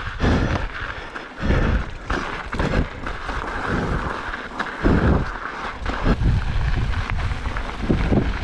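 Mountain bike descending a rough dirt trail at speed: wind buffeting the microphone in gusts, tyres hissing over the dirt, and the bike knocking and rattling over bumps.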